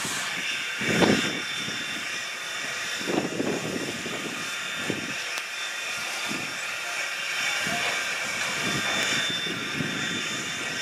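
Baldwin 2-10-0 steam locomotive standing under steam, hissing steadily. Irregular low puffs come every second or two, the strongest about a second in.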